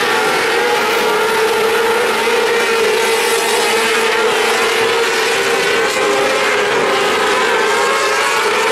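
Several winged mini sprint cars racing together, their high-revving engines blending into a loud, steady drone whose pitch wavers slightly up and down as they circle.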